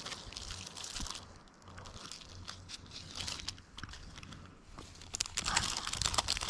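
Faint, scattered clicks and rustles of small fishing tackle being handled by hand while a rig is modified at the sinker arm, getting busier near the end.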